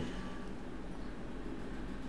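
Room tone: a steady low hum and faint hiss with no distinct sound events.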